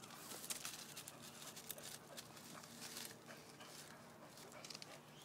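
Faint, scattered scratches and taps of a pit bull puppy's claws on tree bark as it stands up against the trunk.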